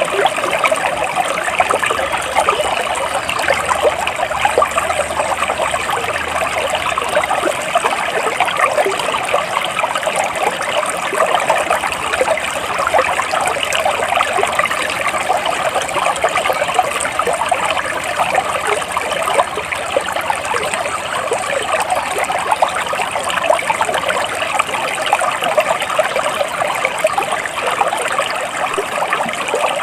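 Stream water trickling and flowing steadily over rocks.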